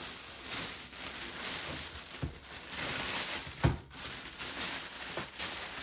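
Clear plastic bag crinkling and rustling as it is pulled off a boombox, with two short low thumps, the second, a little past the middle, the loudest.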